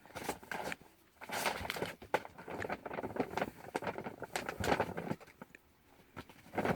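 Irregular rustling and light tapping, a run of short scuffs and clicks with brief pauses.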